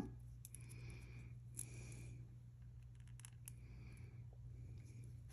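Faint handling of a small piece of jewelry: soft scratchy rustles and a few small clicks, over a low steady hum.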